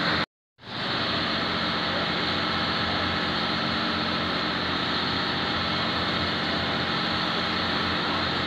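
Caterpillar excavator's diesel engine running steadily while it holds a tree on its lifting strap, with a brief break to silence just after the start.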